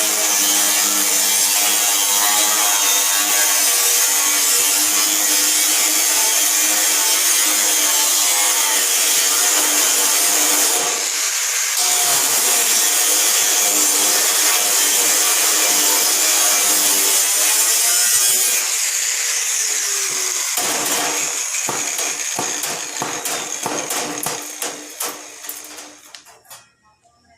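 Handheld power tool running steadily under load, cutting. About 20 seconds in it winds down, fading into a run of rapid clicks before stopping.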